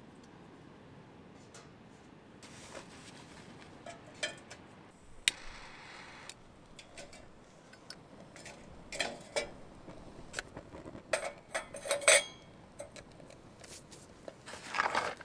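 Small hard objects clinking and knocking as they are handled, in scattered clusters, with a brief hiss about five seconds in. The loudest clinks come about twelve seconds in.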